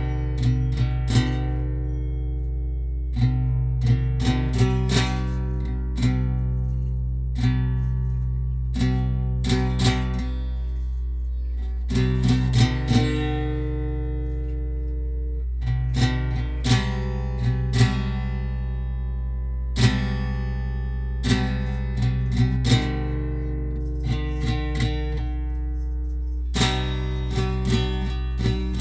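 Acoustic guitar being picked and strummed, notes ringing between frequent sharp attacks, over a steady low hum.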